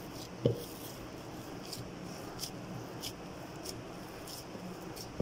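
Risen yeast dough being punched down by hand in a plastic tub: soft squishing and sticky ticks as the trapped gas is pressed out, with a single thump about half a second in.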